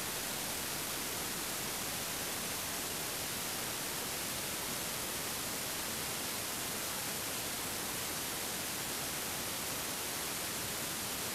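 Steady, even hiss of static, unchanging throughout, with no other sound on top of it.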